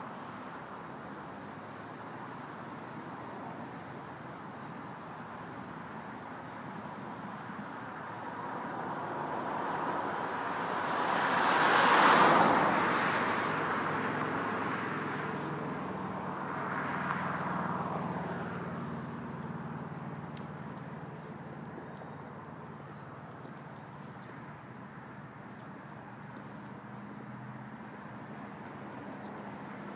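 Insects chirring steadily. A vehicle passes on the road about twelve seconds in, rising and then fading, and a second, quieter vehicle follows a few seconds later.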